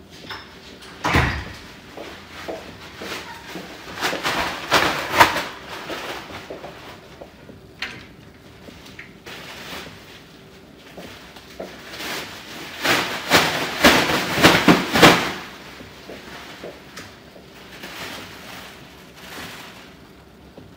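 Knocks and clatter of objects being moved about: a heavy thump about a second in, then two bursts of rattling knocks, over a faint steady hum.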